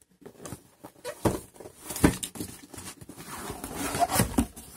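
Cardboard product box being handled and laid down: rubbing and scraping with a few sharp knocks, the loudest about one and two seconds in.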